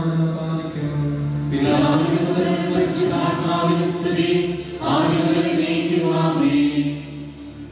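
Voices singing a liturgical chant over a steady held low note. The singing swells into new phrases about two seconds in and again about five seconds in, then drops away near the end.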